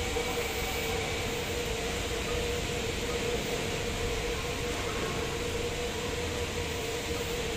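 SMRT C151 train standing at the station platform, giving off a steady hum with a constant mid-pitched tone.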